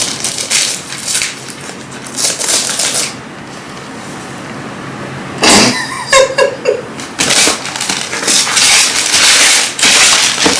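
Gift wrapping paper being torn and crumpled as a present is unwrapped, in crackling bursts with a pause in the middle and a long, dense stretch of tearing and rustling in the second half.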